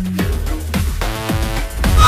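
Electronic soundtrack music: held synth notes over a heavy bass, with sharp percussive hits cutting in.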